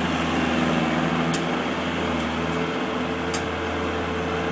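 Heavy construction machinery engine running steadily at a constant speed, with a slight change in its tone about halfway through and a couple of light clicks.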